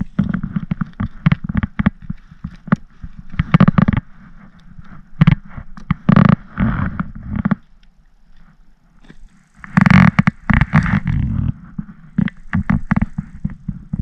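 Handling noise from landing a pickerel in a kayak: rustling, clicks and knocks as the landing net, fish and fishing gear are worked over the angler's lap, with clothing brushing close to the microphone. A quieter lull comes just past halfway before the knocking and rustling pick up again.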